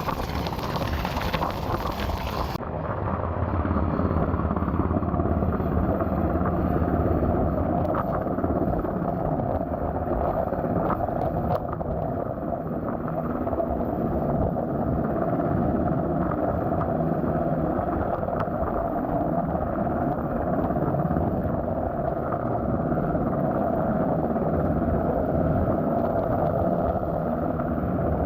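US Coast Guard rescue helicopter hovering, its rotors and turbine making a steady drone. The hiss above the drone drops away sharply a couple of seconds in.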